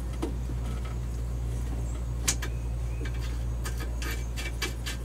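Scattered metallic clicks and taps of a wrench working a fitting on copper hydraulic steering tubing, one sharp click about two seconds in and a quick run of them near the end, over a steady low hum.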